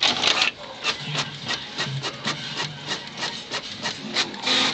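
Inkjet printer warming up and feeding paper through: a loud whirr at the start, then a run of quick mechanical clicks, about three or four a second, over a low motor hum, and another loud whirr near the end.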